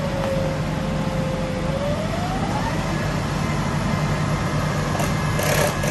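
Utility boom trucks' engines running steadily with a low drone, and a whine that rises in pitch about two seconds in and then holds steady. A brief hiss near the end.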